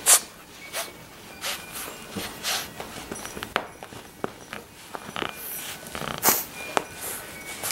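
Five-week-old yellow Labrador Retriever puppy snuffling and mouthing a plush toy: a string of short breathy sniffs and snorts with a few soft clicks of chewing, the loudest sniffs right at the start and about six seconds in.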